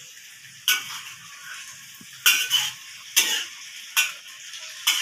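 Metal ladle scraping and knocking against a metal wok as wet pounded cassava leaves are stirred, about six strokes a second or so apart, over a faint steady simmer.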